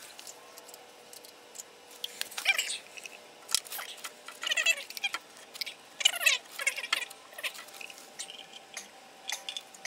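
Several short animal calls that bend in pitch, with a sharp knock between them.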